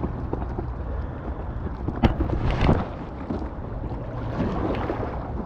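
Paddling an inflatable kayak on a river: wind rumbling on the microphone over water noise, with a sharp knock about two seconds in and paddle splashes just after it and again near the end.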